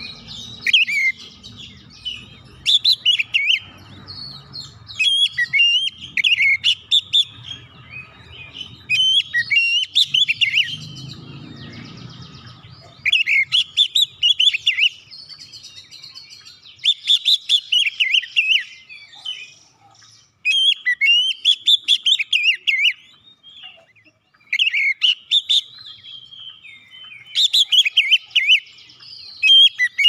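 Oriental magpie-robin (kacer) singing: loud, varied phrases of rapid whistled and chattering notes, delivered in bursts of a second or two with short pauses between them. A faint low rumble underlies the first half.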